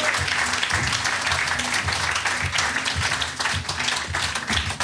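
Audience applause, many hands clapping, with the last of the band's music still sounding underneath.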